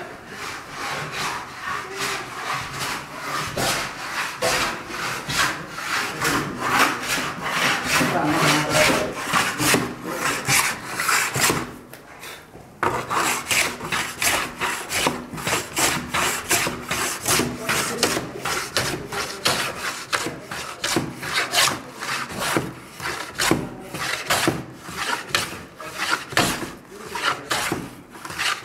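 Hand plane shaving a wooden board in quick, repeated back-and-forth strokes, with a short break about twelve seconds in.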